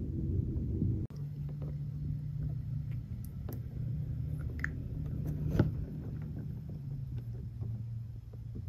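A vehicle engine running: a heavier low rumble that cuts off about a second in, then a steady low hum with scattered light clicks and one sharper knock about five and a half seconds in.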